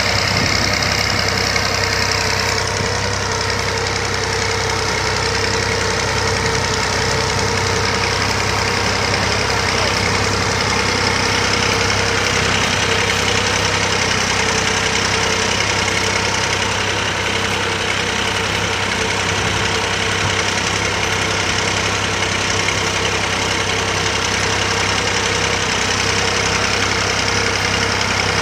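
Massey Ferguson 9500 tractor's diesel engine running steadily at a constant speed while the tractor pulls a plough through the field.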